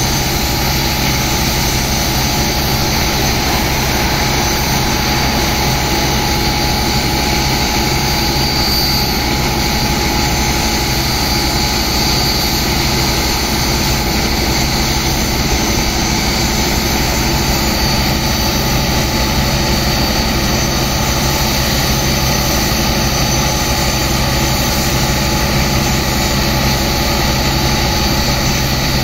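Steady drone of the engine driving the water pumps, over the constant hiss and spatter of high-pressure water jets blasting into wet sand to loosen it so it can be pumped out.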